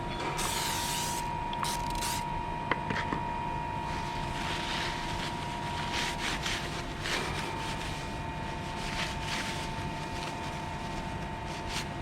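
Workshop machinery running with a steady hum, overlaid by short hissing bursts and a sharp click nearly three seconds in.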